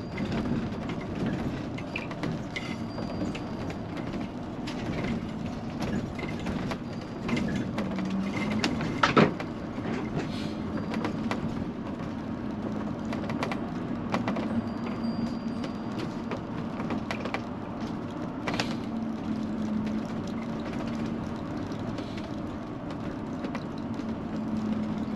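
A motorhome heard from inside the cab while driving slowly: a steady engine drone, with frequent rattles and creaks from the coach. One sharp knock, the loudest sound, comes about nine seconds in.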